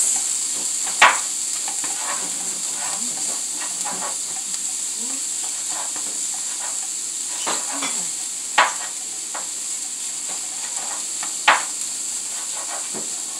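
Cauliflower rice sizzling in butter in a frying pan as it is stirred with a spatula: a steady high hiss, with three sharp knocks of the spatula against the pan.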